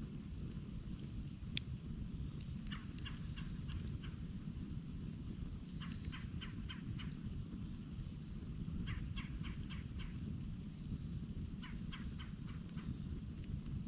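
Campfire burning with a steady low rush and one sharp pop about a second and a half in. Every few seconds comes a short run of rapid ticks.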